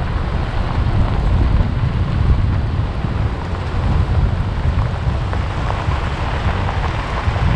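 Wind rushing in through the open window of a moving SUV and buffeting the microphone, over a steady low road rumble.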